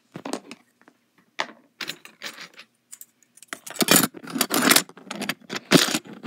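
Close handling noise of a phone held and repositioned by hand: irregular rustling, rubbing and small knocks right at the microphone, in a louder cluster a little past the middle and again near the end.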